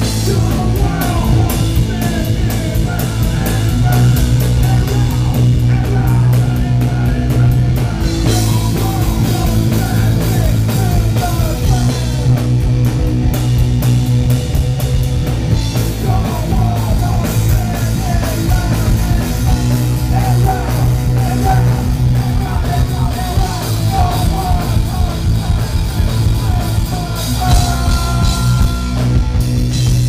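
A live punk-rock band playing loud and without a break: bass guitar and drum kit, with sung vocals over them.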